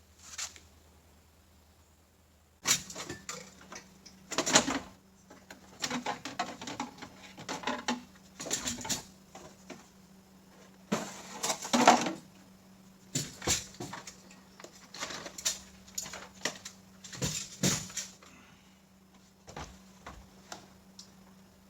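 Irregular clicks, knocks and rattles of parts being handled, louder clusters now and then, over a steady low hum.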